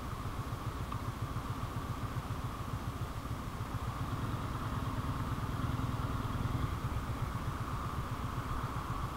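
2007 Yamaha Royal Star Tour Deluxe's V4 engine running steadily with a low, fast pulsing beat. It swells a little just past halfway, then settles back.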